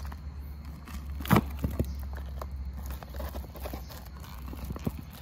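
Thin plastic of a collapsible Carry the Sun solar lantern crinkling and clicking as it is handled and pressed, with one sharper knock about a second in.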